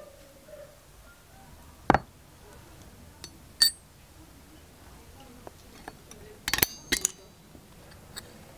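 Small brass lure parts and a metal tool clinking against a steel block: a few sharp, separate clinks, some with a brief ring. The loudest come at about two seconds, just before four seconds, and as a quick pair near seven seconds.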